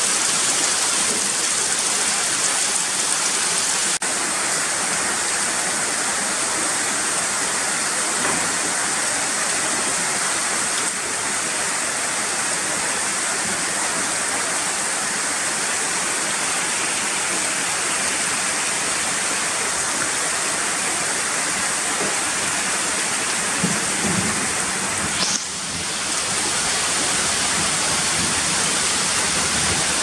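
Steady, even hiss of heavy water noise, like rain pouring, with a brief short sound and a momentary dip about 24 to 25 seconds in.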